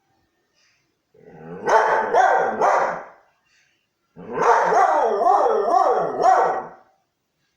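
Siberian husky howling in two bouts of about two seconds each, every bout a run of wavering notes that rise and fall.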